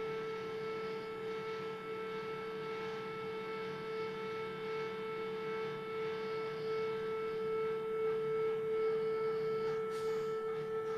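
Stepper motors on a CNC-converted Optimum BF20 milling machine giving a steady whine, one held tone with overtones, as the axes drive during a homing run. A sharp click about ten seconds in.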